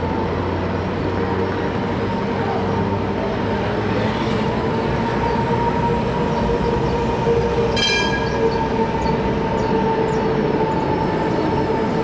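Bern articulated tram passing slowly on street track, its wheels and electric drive running with a steady whine. A brief high squeak comes about eight seconds in.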